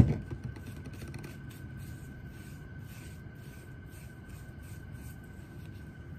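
A sharp knock right at the start, then faint rubbing and handling noises of hands and hair being worked, over a steady low room hum and a faint steady high whine.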